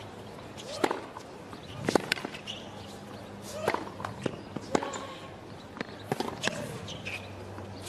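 Tennis rally on a hard court: tennis balls struck by rackets back and forth, about six sharp hits roughly a second apart, with players' footsteps between them.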